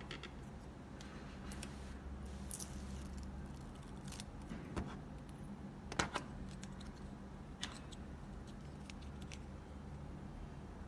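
Small clicks and light rustling from handling a small round convex mirror, its plastic swivel base and foam adhesive pads, with the sharpest click about six seconds in, over a steady low hum.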